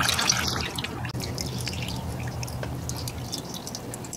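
Engine oil dripping and trickling off a just-removed 4G63 oil pump into a plastic tub, in many small drips over a low steady hum.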